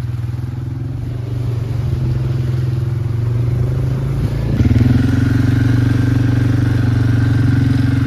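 ATV (quad bike) engine running while being ridden, heard from the rider's seat. About halfway through, its note rises and grows louder.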